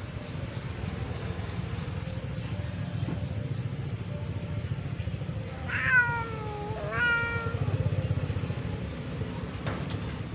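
Orange tabby cat meowing twice, about a second apart, each call falling in pitch, over a steady low background rumble.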